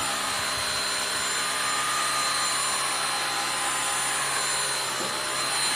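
Vacuum cleaner running steadily: a rushing hiss of air with a thin, even high whine over it.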